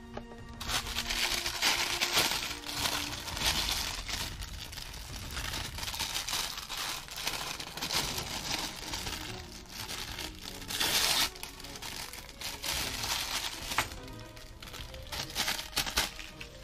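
Printed plastic packaging wrapper crinkling in repeated bursts as it is handled and unfolded, over quiet background music.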